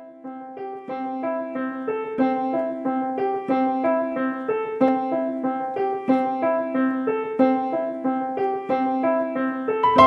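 Piano music: a repeating figure of single notes over a steady low note, fading in at the start and growing fuller near the end.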